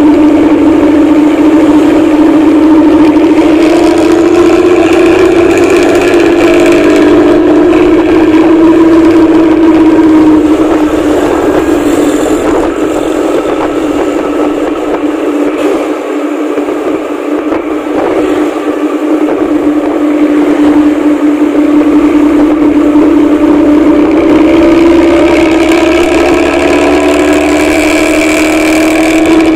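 A vehicle engine droning steadily under way, holding one pitch that rises and sags a little. It grows somewhat quieter through the middle and loud again near the end.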